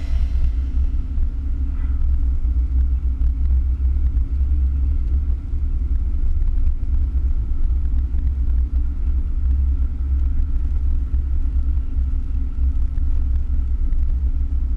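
Car driving along a paved road, heard from inside the cabin: a steady low rumble of engine and tyres with a faint steady whine above it.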